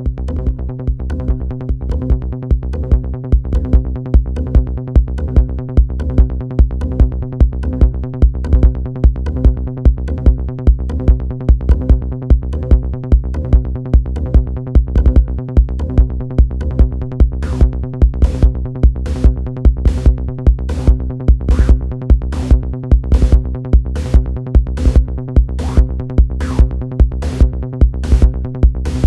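Electronic techno jam from Moog Sound Studio synthesizers and a Roland TR-6S drum machine: a steady kick drum about twice a second under a sustained low synth bass line, with a crisp high drum-machine hit joining on a steady pulse about two-thirds of the way in.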